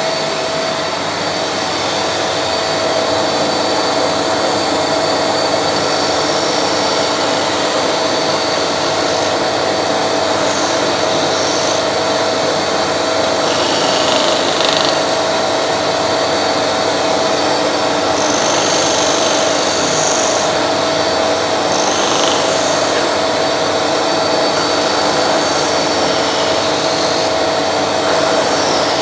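Record Power DS300 disc sander running steadily together with the shop vacuum that extracts its dust, a constant motor tone under the airflow noise. Short scratchy rasps come several times as a wooden template is pressed against the spinning sanding disc to round its edges.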